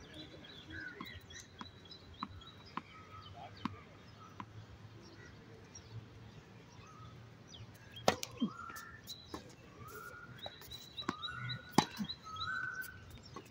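Tennis ball struck by racquets: two sharp hits, about four seconds apart, in the second half. Birds chirp throughout, and in the later part one repeats a short rising call about once a second.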